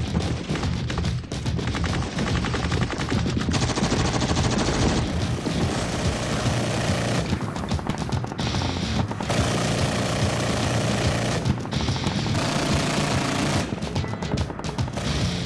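Rapid automatic gunfire in long bursts of close-spaced shots, with rock music underneath.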